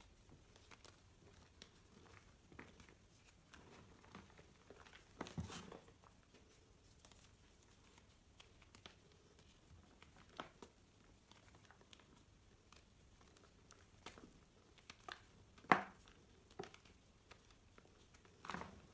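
Hands crushing and crumbling chunks of reformed gym chalk, giving soft, scattered crunches and crackles. A louder crunch comes about five seconds in, and the loudest a few seconds before the end.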